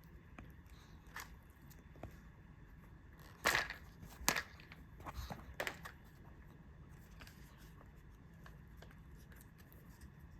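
A dog chewing a dried beef heart treat: a few short, sharp crunches, the loudest about three and a half and four seconds in, with a couple of smaller ones soon after.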